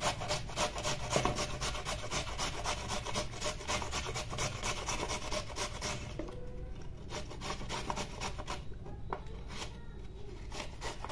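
Carrot pieces being grated on a coarse flat steel grater: quick rhythmic rasping strokes, several a second, with a couple of short pauses.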